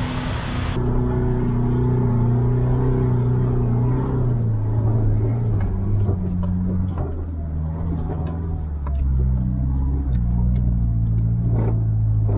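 Mitsubishi Triton ute's engine heard from inside the cab while four-wheel driving on a sand track: a steady engine note that steps up and down in pitch several times as the revs change, with scattered short knocks.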